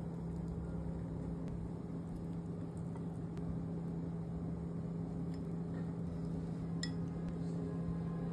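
A steady low hum with a few light clinks of a metal spoon against a ceramic bowl, around three seconds in and again near seven seconds, as relish is spooned onto chicken and rice.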